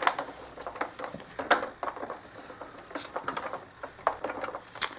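Plastic parts of a carpet shampooer being handled during assembly: irregular light clicks, taps and rustling as something is wrapped around the machine, with sharper knocks about a second and a half in and near the end.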